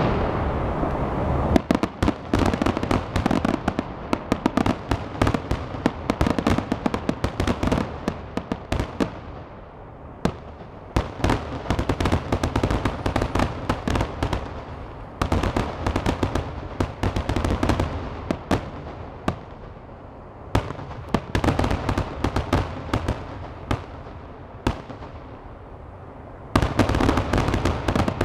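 Aerial fireworks display: rapid crackling and popping of many small reports over heavy low booms, swelling in waves every few seconds and thinning out in between.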